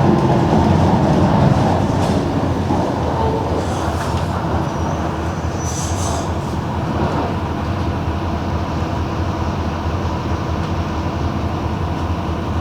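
Mercedes-Benz OM-366LA six-cylinder turbodiesel of a city bus running, louder for the first couple of seconds, then easing to a steady lower note. A brief high squeal comes about six seconds in.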